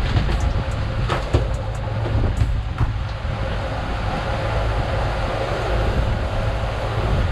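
Boat's outboard motor running steadily under way, with wind and water noise over it. A few sharp clicks come in the first three seconds.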